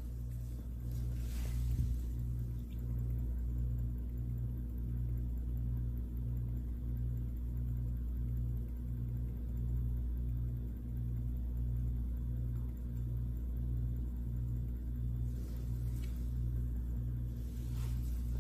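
Steady low mechanical hum with an even pulse about one and a half times a second, from a magnetic stir plate spinning the stir bar in the beaker. Faint ticks come near the start and again near the end.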